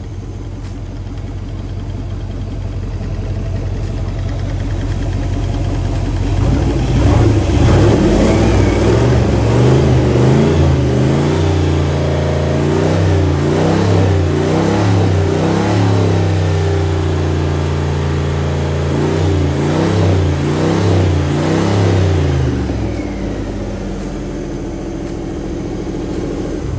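Freshly rebuilt Chrysler 318 V8 marine engine, converted to opposite rotation, running smoothly on a test stand during its first run: it idles, is revved up about six seconds in and held at varying higher speeds, then drops back to idle near the end.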